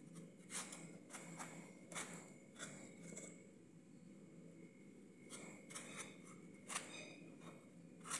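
A knife slicing through watermelon rind and flesh into wedges: a run of short, crisp crunching cuts, faint, in two spells with a pause of a second or two in the middle.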